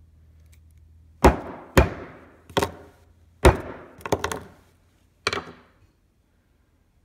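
About seven sharp blows on a Samsung phone battery lying on a concrete floor, unevenly spaced and each with a short ringing tail.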